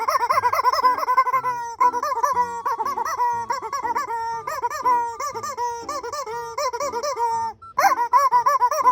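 Rapid rubbery squeaking: a long run of short, wobbling squeaks, about three a second, with a brief break near the end before it starts again.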